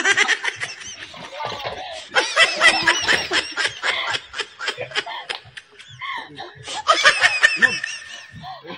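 Young people laughing hard in quick high-pitched bursts. The laughter comes in three bouts: at the start, from about two seconds in, and again near the end.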